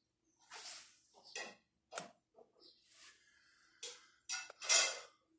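Faint scattered rustling noises with a few short sharp clicks, the loudest about four and a half seconds in.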